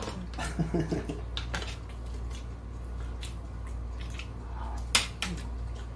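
Cutlery clinking and scraping against a plate during a meal: a few scattered light clicks, the loudest about five seconds in, over a steady low hum.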